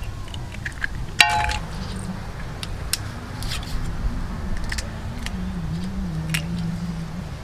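Light scattered clicks and cracks of shell as boiled balut duck eggs are peeled and handled with a kitchen knife, with one sharp ringing clink about a second in, over a low steady hum.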